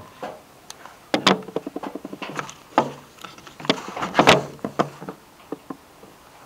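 Sheets of paper rustling and flapping as a stack of handouts is sorted, with a string of knocks and handling clatter. The loudest rustles come about a second in and again near four seconds.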